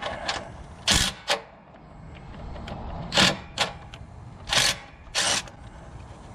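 DeWalt cordless impact wrench hammering in several short trigger bursts, loosening a mounting bolt of a riding mower's Kohler engine.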